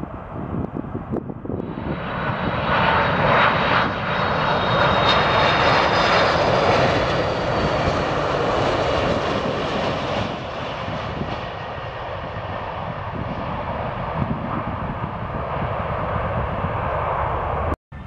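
Jet airliner engines at takeoff thrust, most likely a Boeing 747 lifting off: a loud, steady jet roar with a high whine. It swells about two seconds in, stays strongest for several seconds, then slowly eases off. It breaks off abruptly near the end.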